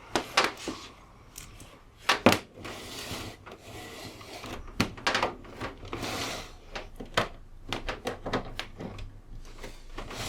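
Irregular clicks and knocks with some rubbing from a UPS's plastic case and cables being handled, with louder knocks about two seconds in and near the middle.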